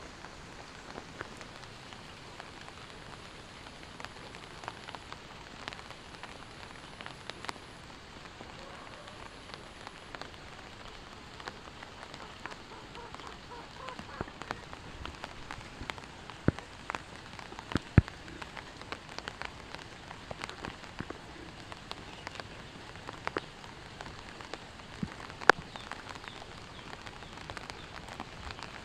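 Rain falling, with a steady hiss and many sharp drop impacts scattered through it. A few of the impacts are much louder than the rest.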